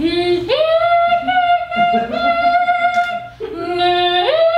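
A woman singing solo without words, holding long notes and leaping up an octave from a low note to a high one, twice.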